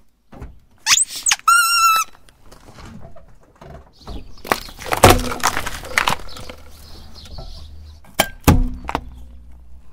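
A rubber-bulb bicycle horn squeezed under a car tyre gives a short rising squeal and then a steady honk of about half a second. A few seconds later, plastic tubes filled with gel beads crack and crunch under the tyre. Near the end, a metal air-freshener can is crushed with a sharp crunch, over the low rumble of the car's engine.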